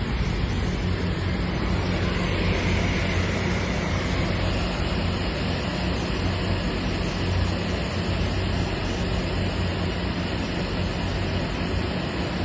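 Steady whooshing air noise with a constant low hum from a large industrial gas-fired air turnover unit and its fans running, as it waits to go into the burner start-up sequence.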